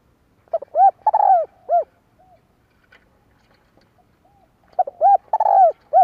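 Spotted dove cooing: two phrases a few seconds apart, each a quick run of four or five low, arched coos with a longer burry note near the end.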